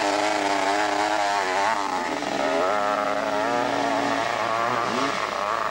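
Dirt bike engine at full throttle launching up a steep hillclimb, its pitch wavering up and down for the first couple of seconds, then holding fairly steady as the bike climbs.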